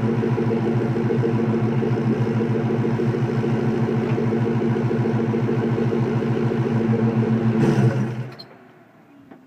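Car engine idling through a catless exhaust (BBK off-road H-pipe into a MAC exhaust with 3.5-inch tips), a steady, evenly pulsing note. About eight seconds in the engine is switched off and the sound dies away within half a second.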